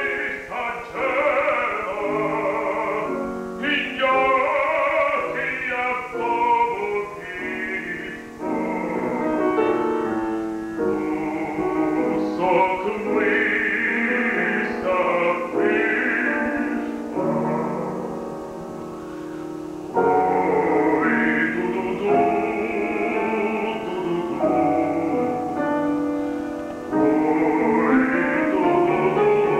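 Live classical song recital: a baritone sings a Ukrainian folk-song art setting with vibrato, accompanied by a grand piano.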